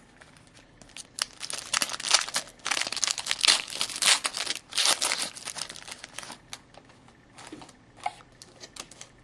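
Plastic-foil hockey card pack wrapper being torn open and crinkled by hand: a dense run of crackling for several seconds, then a few scattered crinkles.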